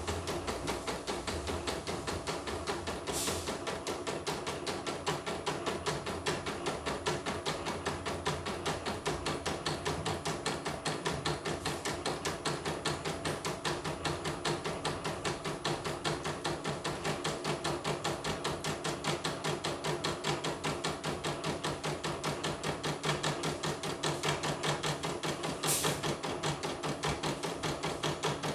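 Portable computerized embroidery machine stitching a design, its needle bar knocking in a rapid, even clatter.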